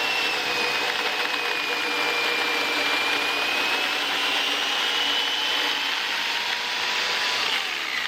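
Black & Decker Alligator Lopper's electric chainsaw running steadily with a high whine as its chain cuts through a log, then winding down near the end as the motor is let off.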